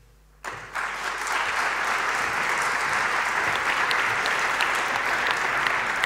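Audience applauding: dense, steady clapping from a seated crowd that starts about half a second in.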